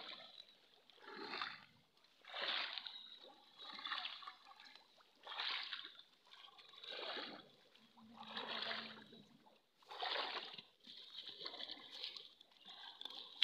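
Shallow water splashing and sloshing as hands grope and scoop through it to catch fish by hand, in repeated splashes roughly every second and a half.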